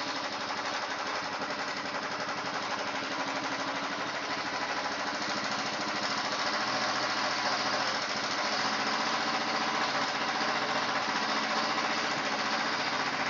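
Royal Enfield single-cylinder four-stroke engine running steadily at a slightly raised idle while the carburetor's air-fuel mixture screw is slowly turned from a rich setting toward the correct mixture; it grows a little louder about halfway through.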